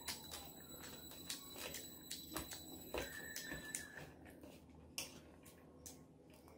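Fingers mixing and squeezing cooked white rice on a plate: faint, irregular soft clicks and squishes.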